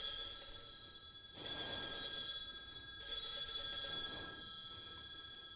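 Altar bells (sanctus bells) rung three times at the elevation of the chalice, about a second and a half apart, each ring a bright cluster of high tones that fades away, the last dying out slowly. The bells mark the consecration of the wine at the Eucharist.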